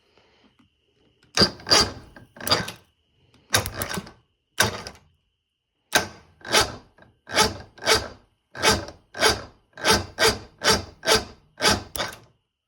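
Electric starter of a Force two-stroke outboard cranking the engine over slowly, each stroke a rasping churn. It comes in a few short bursts, then a steady run of about one and a half strokes a second. The cranking is sluggish, with the spark plugs still in.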